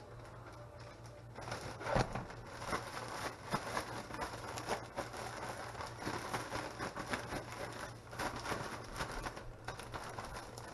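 Clear plastic bag of crappie pieces and breading flour being shaken, crinkling and rustling steadily from about a second in, with one louder thump near two seconds.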